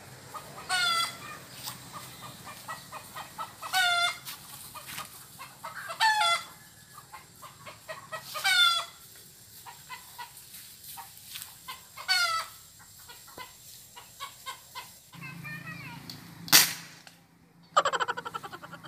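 Chickens calling, a short call every two to three seconds with soft clucks between. Near the end comes a single sharp bang, the loudest sound, from a homemade alcohol-fired PVC marble gun being fired at a chicken, followed by a brief rattle.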